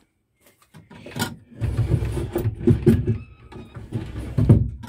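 Homemade wooden drawer being worked in its wooden cabinet and pulled open, with wood scraping and knocking against wood. The scraping and clatter are irregular and start about a second in.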